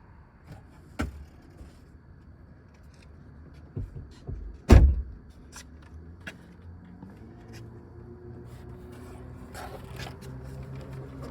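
Large plastic lower dash cover being handled and fitted back into place: scattered knocks and clicks, with one loud thump about five seconds in. A faint steady hum comes up in the second half.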